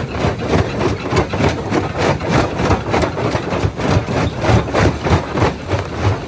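Jaw rock crusher crushing stone: a continuous clatter of rapid knocks, several a second, over a steady machine drone.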